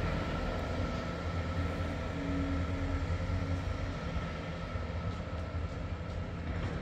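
Class 166 diesel multiple unit's underfloor diesel engines running as it departs the station: a steady low hum with a thin, steady whine above it, easing slightly towards the end.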